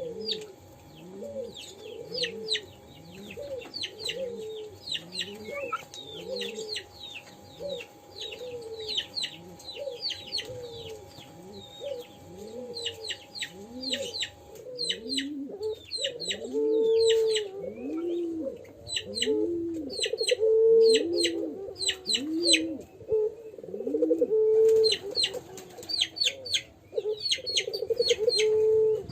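Young puter pelung dove repeating short rising-and-falling coos about once a second, the unsteady 'crying' call of a juvenile still learning to coo. The notes grow deeper and stronger in the second half. Small birds chirp throughout.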